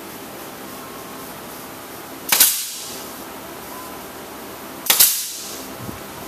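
Pneumatic finish nailer firing twice, about two and a half seconds apart, each shot a sharp crack followed by a short hiss of exhaust air, as it drives small finish nails through thin plywood.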